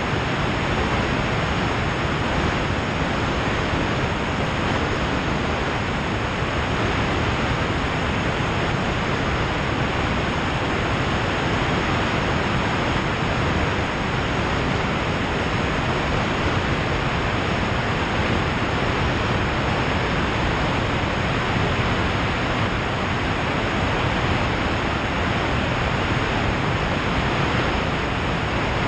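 Steady, even rush of airflow over a camera mounted outside a Cessna 182 in flight, with no distinct engine tone standing out.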